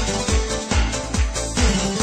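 Music with a steady, heavy drum beat.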